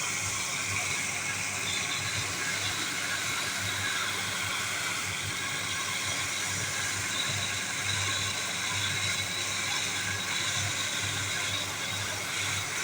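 Diamond concrete cutting machine running steadily: a constant motor whine over a hiss.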